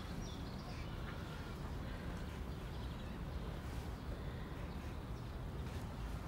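Quiet, steady low rumble of background room tone, with no distinct events.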